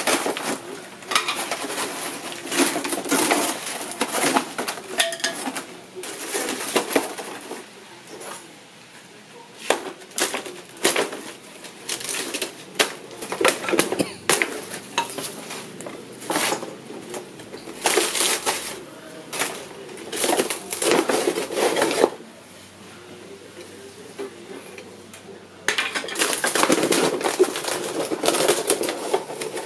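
Thin wooden planks clattering and knocking against each other as they are pulled out of an old marine plywood sheet and piled up, in irregular spells of sharp strokes. The clatter pauses for a few seconds near the end, then starts again.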